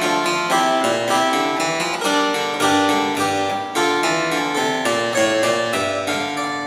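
Hubbard harpsichord played in a quick run of plucked notes, about five or six a second, with lower bass notes beneath the melody.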